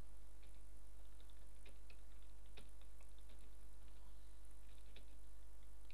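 Computer keyboard typing: faint, irregular key clicks over a steady low hum.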